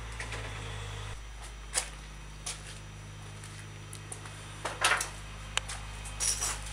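A steady low hum with scattered short clicks and knocks, the loudest a quick cluster about five seconds in.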